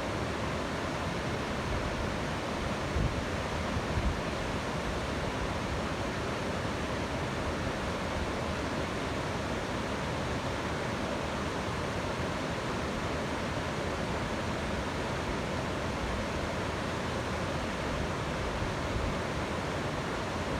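Waterfall's steady rushing of falling water, with a couple of brief low bumps about three and four seconds in.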